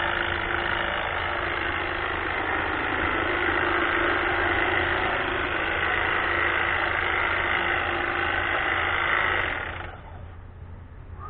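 Greenworks battery-powered hedge trimmer running, its motor and reciprocating blades making a steady buzz, which stops suddenly near the end.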